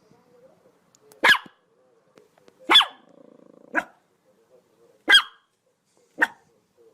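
A dog barking: five sharp single barks at irregular intervals of about a second, with a brief low growl between the second and third.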